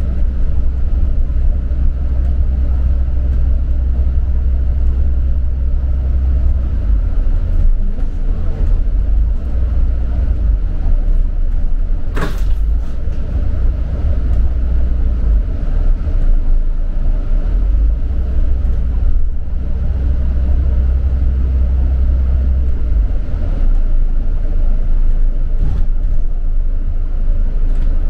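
A London bus on the move: a steady low rumble of engine and road, with a single sharp knock about twelve seconds in.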